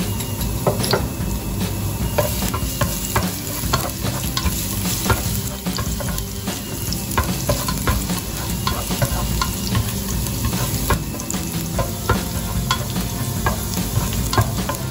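Minced garlic sizzling in hot vegetable oil in a stainless steel pot, being fried until fragrant, while a spatula stirs it with frequent scrapes and taps against the pot.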